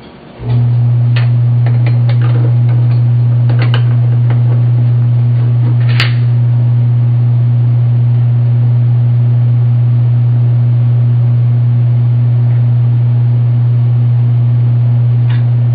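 Welding machine switched on and humming at idle: a loud, steady, low electrical hum that starts about half a second in and holds without change. A few light metal clinks come from parts being set in a vise.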